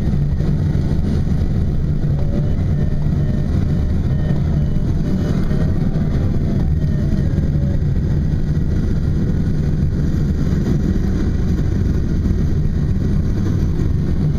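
Steady low rumble in a glider's cockpit in flight, unchanged throughout.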